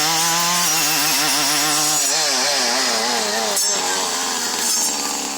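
Stihl FS 74 brushcutter's two-stroke engine at full throttle, its chisel-tooth circular saw blade cutting through a small pine trunk. The engine pitch wavers up and down as the blade bites, then drops to a lower, steadier pitch near the end as the throttle eases off.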